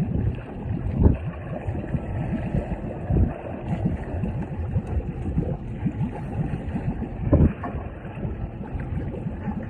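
Rumbling noise aboard a fishing boat on open water, with wind on the microphone and irregular knocks and bumps, the loudest about a second in, about three seconds in and about seven and a half seconds in.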